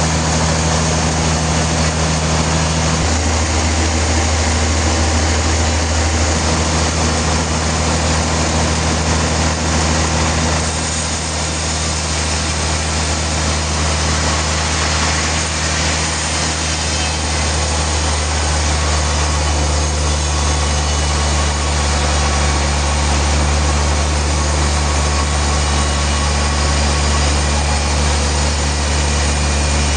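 Sawmill machinery running steadily: a low motor hum with a broad rushing noise over it, dipping slightly in level about ten seconds in.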